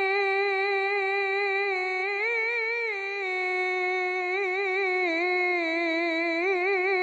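A man singing an unaccompanied Islamic ibtihal (devotional chant), holding one long vowel on a single breath. The note stays steady at first, rises briefly about two seconds in, and from about halfway on wavers in quick melismatic ornaments.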